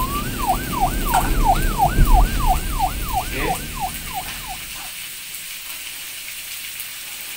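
Siren yelping: a tone sweeping up and down about three times a second over a low rumble, cutting off suddenly about four and a half seconds in. A faint sizzle of food frying in the wok follows.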